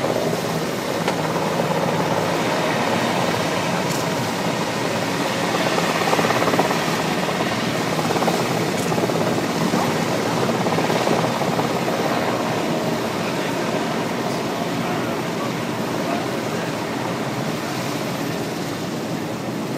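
A helicopter's engine and rotor running steadily, heard as a loud even rush with a low hum, swelling slightly about six seconds in.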